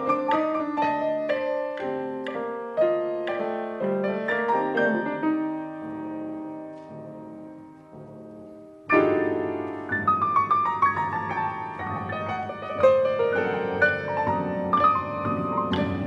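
Six grand pianos played together by an ensemble of pianists: quick, busy notes thin out into a few held notes that fade away. About nine seconds in, a sudden loud, dense entry starts a new passage of busy playing.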